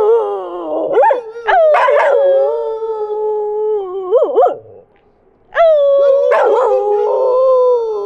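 A dog howling: a run of wavering howls and yelps, a short pause about five seconds in, then another long howl that starts high and slides down to a steady tone.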